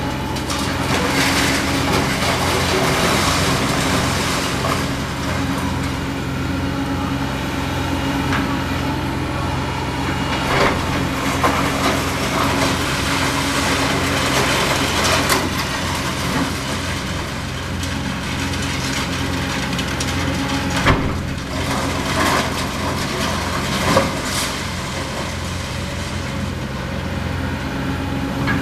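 Demolition excavator's diesel engine running steadily while its bucket tears into and crushes the building, with crunching debris and several sharp cracks and bangs of breaking material.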